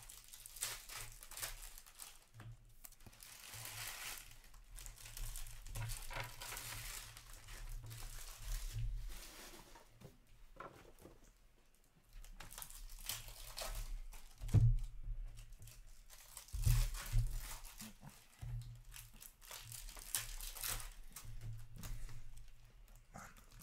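Rustling and crinkling of hockey trading cards and card packs being handled and stacked, with a few dull thumps about two-thirds of the way through as card stacks are set down on the counter.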